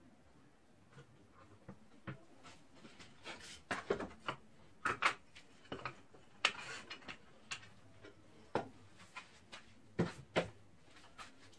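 Irregular light knocks and clicks of small objects being handled and set down, a dozen or so spread unevenly through the middle of the stretch.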